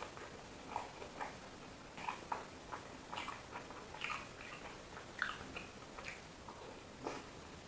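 A person chewing and eating, with irregular wet mouth clicks and smacks a few times a second.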